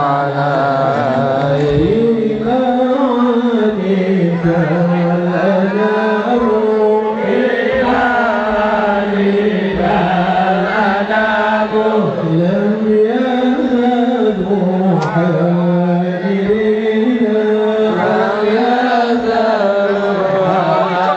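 Islamic sholawat (salawat) chanted in Arabic: a continuous sung melody with long held, gliding notes.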